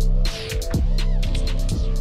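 Electronic background music with a heavy beat and held bass tones.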